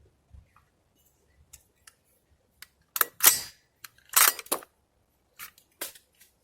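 Hunting rifle's jammed action being handled: sharp metallic clicks and short scraping sounds in two clusters about three and four seconds in, then a few lighter clicks near the end.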